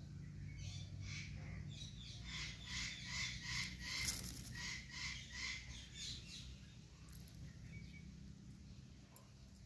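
Indian ringneck parakeet calling in a rapid run of short, repeated notes, about three a second, growing louder toward the middle and then stopping.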